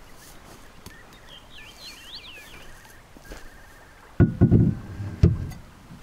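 Hollow knocks from a plastic boat's hull as it is pulled in against the bank by its bow rope: a heavy knock about four seconds in that rings briefly, then a sharper one a second later. A bird chirps a few times in the first half.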